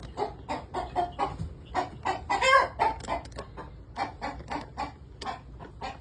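Chickens clucking in a fast run of short notes, with one louder, longer call about two and a half seconds in.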